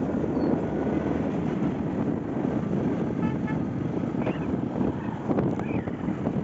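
Steady road and wind rumble from riding along a road in traffic, with a short vehicle horn toot about three seconds in.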